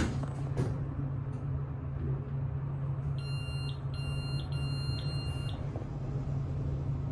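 Otis traction elevator car riding upward with a steady low hum, and four short electronic beeps in quick succession about three seconds in.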